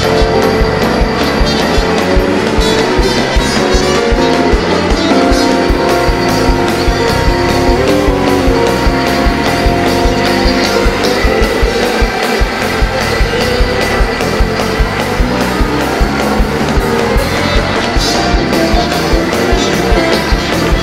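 Upbeat gospel praise music from a live church band, with a fast, steady beat.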